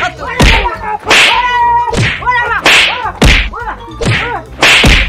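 A beating: hard slaps and punches land in quick succession, about seven blows, with a man crying out in pain between them.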